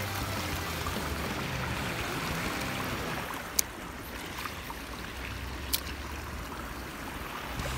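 Steady riverside hiss of moving water and air, with two sharp clicks about two seconds apart near the middle as the spinning reel is handled.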